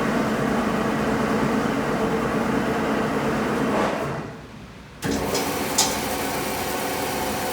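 Welding positioner's power drive running with a steady mechanical hum. It winds down about four seconds in and starts again abruptly about a second later, with a sharp click just after.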